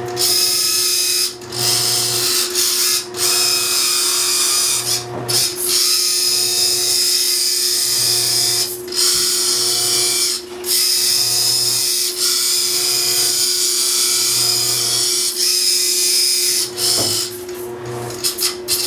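Small electric motor of a homemade RC tugboat running with a steady high whine, cutting out briefly several times as it is switched off and on again.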